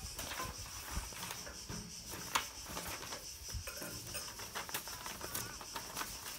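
Background sound of a swimming-meet TV broadcast heard through a television speaker: a steady high hiss with scattered light clicks and taps.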